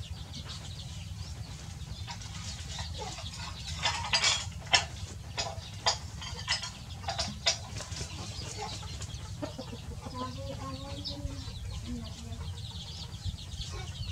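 Chicks peeping with short high chirps while a hen gives low clucks, one drawn-out cluck coming about ten seconds in. A run of sharp, loud clicks between about four and seven and a half seconds in is the loudest thing heard.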